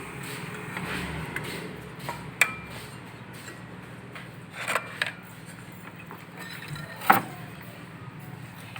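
A few sharp knocks and clinks of objects being handled, the loudest about seven seconds in, over a steady low hum.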